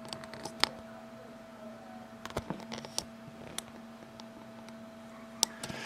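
Scattered light clicks and taps of plastic model-kit sprues being handled and turned over, over a steady low hum.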